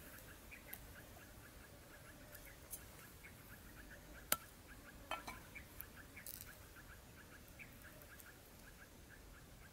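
Faint sounds of a coucal carcass being cut up on a wooden chopping block, with one sharp knock on the block about four seconds in and a few small scrapes after it. Under it runs a steady background chirping, about four to five chirps a second.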